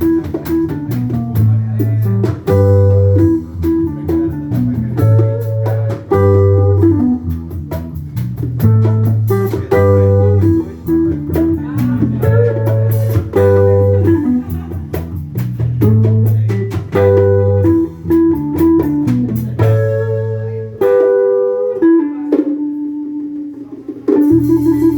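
Band playing a blues-style instrumental passage: a repeating electric guitar riff over bass and drums. About 21 seconds in the bass and drums drop out, leaving a held guitar note, and the full band comes back in just before the end.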